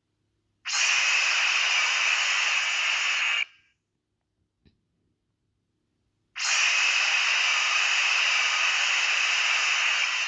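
Showa-era MechaGodzilla sound effect: a hissing noise burst that starts and stops abruptly, played twice, the second time a little longer.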